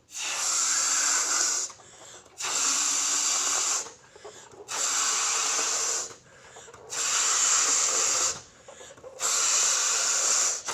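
A balloon being blown up by mouth: five long breaths of air pushed into it, each about a second and a half, with short pauses between for breath.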